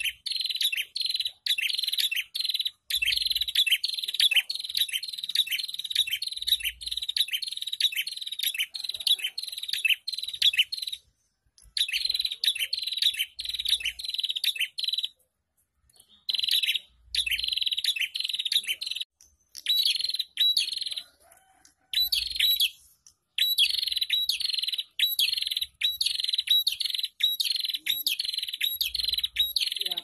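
A prenjak calling in a fast, harsh chatter of rapidly repeated notes. It comes in long bouts broken by a few short pauses.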